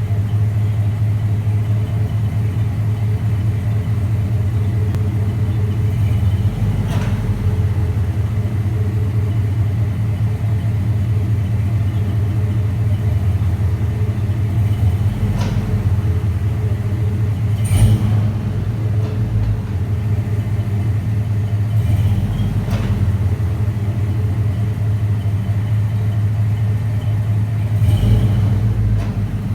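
Chevrolet Silverado SS with all-wheel drive: its V8 and drivetrain run with a steady low drone. A sharp clunk comes from the drivetrain five times, several seconds apart. It is the drive shaft or transfer case clunk of an unknown fault that the owner is trying to track down.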